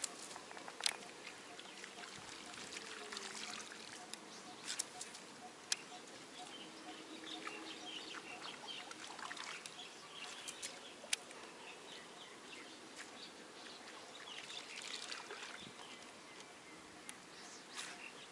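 Faint water trickling and lapping around a kayak, with a few sharp clicks scattered through it and faint bird chirps.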